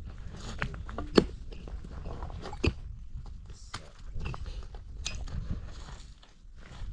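Irregular crunching and scraping handling sounds with a few sharp knocks, the loudest about a second in.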